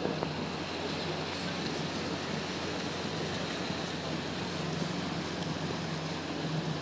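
Canal tour boat under way, its engine running steadily as a low hum beneath a constant rush of wind and water noise.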